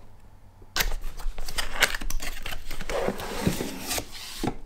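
Unboxing handling: a cardboard carton opened and a foam-wrapped unit pulled out of it, a dense run of rustling, scraping and crinkling of cardboard and foam packaging that starts abruptly about a second in.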